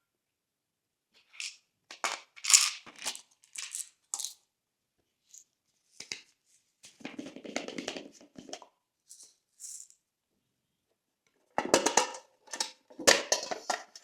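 Glossy slime being squished and mixed, giving sticky, crackly squelches in irregular bursts with silent gaps between them; the loudest bursts come near the end.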